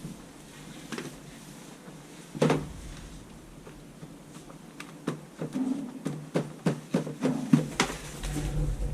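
Scattered knocks and clicks: one about a second in, a louder one about two and a half seconds in, then a quick irregular run of about a dozen in the last four seconds.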